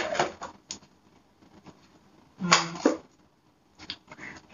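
Quiet handling of plastic toiletry bottles and a makeup palette in a box: a few light clicks and knocks.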